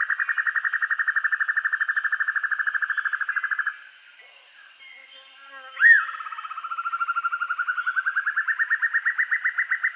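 Black-and-yellow broadbill (sempur-hujan rimba) singing a long, fast trill of rapidly repeated notes. The trill breaks off about four seconds in, a single short upswept note comes near six seconds, and then the trill resumes low and climbs in pitch.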